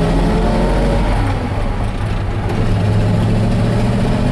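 1952 Ford F1's original flathead V8 running as the truck is driven, heard from inside the cab, with a slight dip in level about two seconds in.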